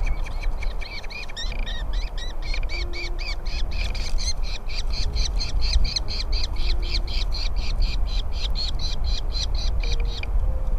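Nestling birds begging with a rapid, even series of high chirps, about five a second, which stop abruptly near the end. A low rumble runs underneath.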